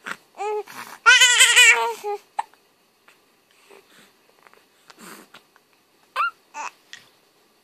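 A baby vocalizing in a high pitch: a loud, long squealing cry about a second in, then a few short yelps later on.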